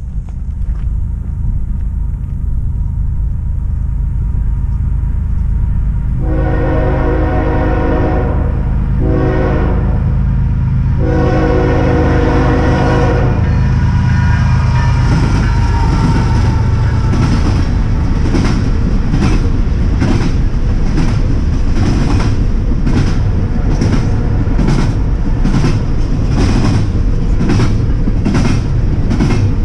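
Norfolk Southern GE ES44AC diesel locomotive approaching with a low rumble and sounding its multi-note horn: a long blast, a short one, then another long blast. It then passes, and double-stack intermodal cars follow, their wheels clicking over the rail joints in a steady beat of a little over one click a second.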